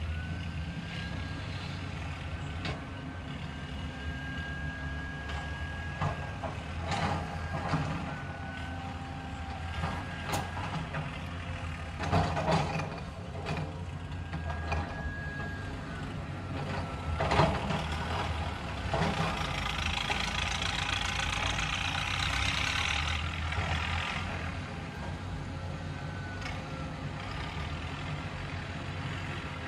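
Caterpillar hydraulic excavator's diesel engine running steadily while it digs, with a whine that rises and falls in pitch as the boom and bucket move. A few knocks come from the digging, and a rushing hiss lasts several seconds past the middle.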